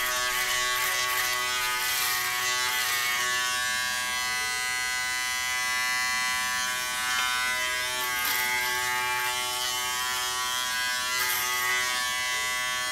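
Remington Wetech PF7580 electric foil shaver running with a steady buzzing hum, with a brief hiss now and then as the head cuts stubble, about eight and eleven seconds in.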